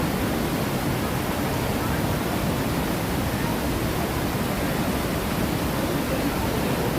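Steady rush of falling water from an artificial waterfall.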